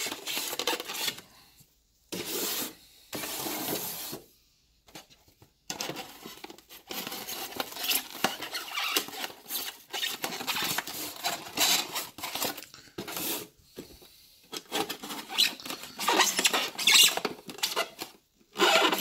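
Utility knife blade sawing through an expanded-polystyrene foam cooler lid: irregular scratchy scraping strokes with brief pauses.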